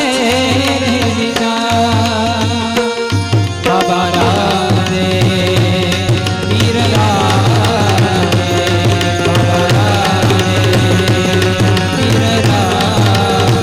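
Gujarati devotional aarti music: tabla keeps a steady rhythm under a wavering melodic line.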